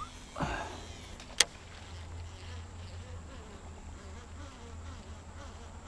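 A fishing cast: a quick swish of the rod, then a single sharp click about a second and a half in as the casting reel is engaged, followed by a faint steady buzz while the lure is reeled in.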